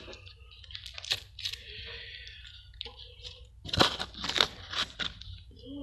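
Slime being squished and poked by hand, giving a string of sharp clicks, pops and crackles, most of them close together around four to five seconds in.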